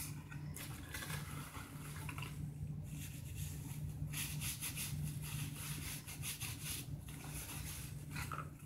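Paper food wrappers and a paper takeout bag rustling and crinkling as they are opened and crumpled by hand, busiest from about four to seven seconds in, over a steady low hum.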